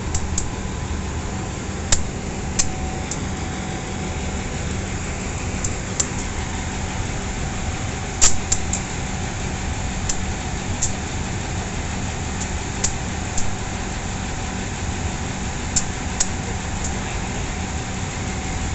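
Steady low drone of an idling diesel engine while a locomotive's fuel tank is being filled through a hose nozzle, with a dozen or so short sharp clicks scattered through it, the loudest a little past a third of the way in.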